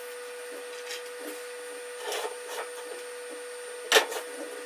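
Steady machine hum in a welding shop, with a few light knocks of handling at a steel welding table and one sharp clack about four seconds in.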